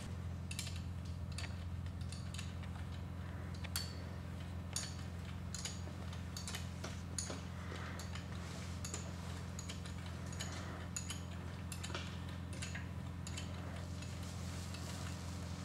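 Light, irregular metallic clicks and ticks as a brake hose's banjo bolt is fitted and turned with a wrench on a disc brake caliper, over a steady low hum.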